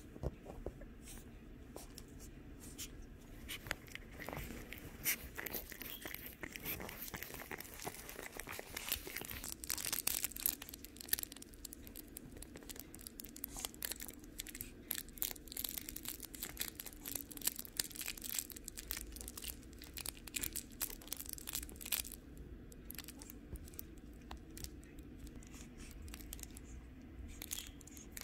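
Shih Tzu puppies scuffling in a fabric dog bed and tussling over a plush toy: irregular rustling of fabric with quick scratching clicks, busiest in the first half.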